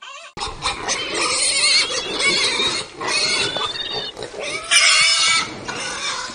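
Several young pigs squealing at once in loud, overlapping bursts. The sound starts abruptly a moment in, and the loudest burst comes about five seconds in.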